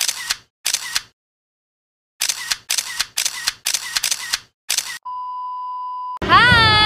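Camera shutter sound effects clicking in quick succession, a dozen or so shots in two bursts. Then a steady test-card beep tone for about a second, cut off near the end by music with singing.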